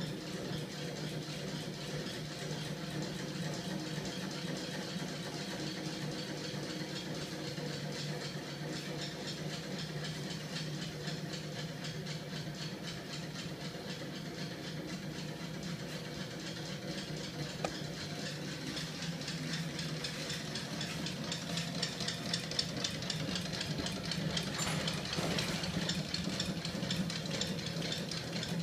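Homemade two-stroke magnet engine prototype, a heavy stacked flywheel and crankshaft driven by a small electric motor, running steadily: a steady hum with a fast, even rattle from the mechanism. It grows a little louder and brighter near the end.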